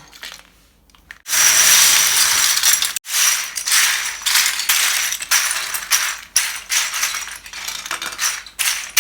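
A pile of small hard plastic toys clattering and rattling loudly, starting about a second in, with many sharp clicks.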